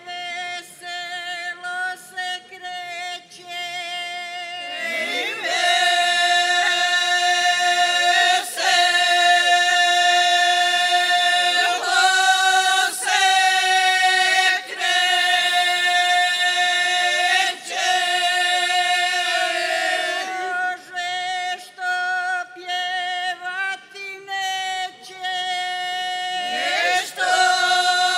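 Mixed group of women and men singing a traditional Serbian folk song a cappella, with a steady held drone note under the melody. The singing gets louder about five seconds in.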